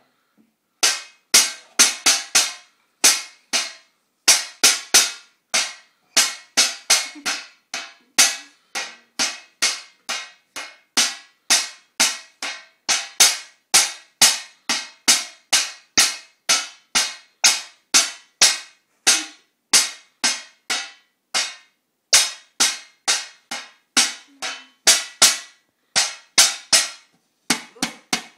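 Small toy drums banged by children with spoons: a long, uneven run of sharp strikes, about two to three a second.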